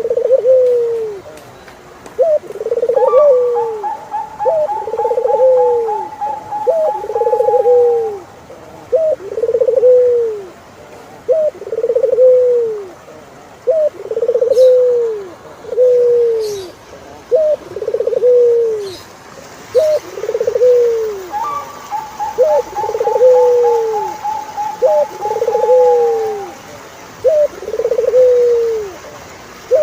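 Turtle dove cooing over and over, about one coo every two seconds. Each coo is a short clipped note followed by a longer arching one. Twice, a higher-pitched rapid run of notes from a second bird lasts several seconds alongside the coos.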